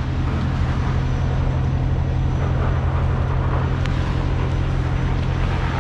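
Diesel engine idling, a low, steady drone that holds even throughout.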